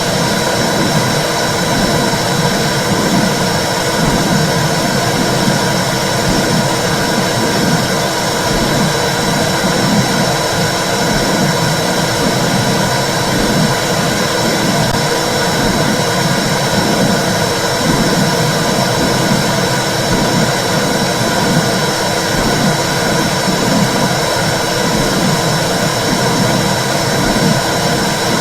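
Womb sound for soothing babies: a steady, loud whooshing rumble with an uneven pulsing in the low end.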